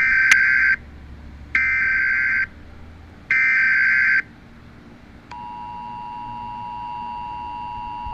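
Emergency Alert System broadcast tones: three short, harsh, buzzy bursts of SAME header data, then, a little over five seconds in, the steady two-note EAS attention signal begins and holds. Together they announce an emergency alert message.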